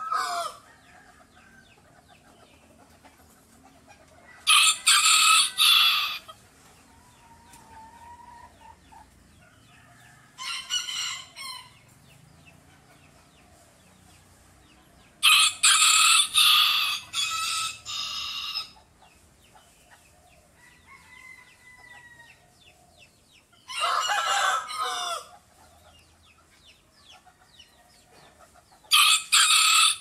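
Rooster crowing about five times, each crow one to three seconds long and several seconds apart. The longest crow falls near the middle.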